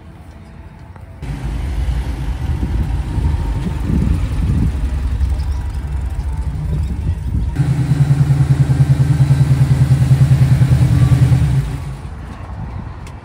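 Classic car engines. First a car's engine running as it pulls away, then a louder steady engine note with a rapid, even exhaust pulse, which falls away shortly before the end.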